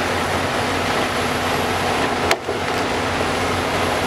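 Log loader running steadily, its diesel engine and hydraulics working as the grapple reaches into a deck of logs, with a single sharp knock a little over two seconds in.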